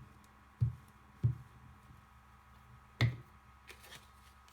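Three dull knocks on a tabletop as paper pieces and a glue stick are handled, the last with a sharper click, over a faint steady electrical hum.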